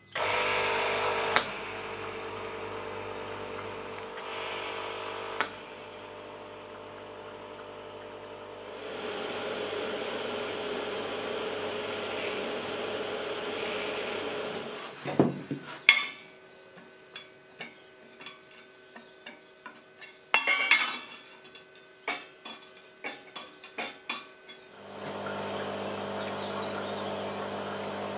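TIG welding on a steel tube frame: the arc's steady buzz and hiss in several stretches. In the middle the welding stops for a few sharp metal knocks and a run of light clinks.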